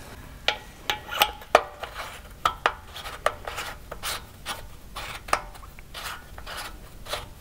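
Metal-braided Earl's hose and its fitting handled and lined up by hand on a fitting of an aluminium engine tank: irregular light metallic clicks and taps, some ringing briefly, with the braid rubbing.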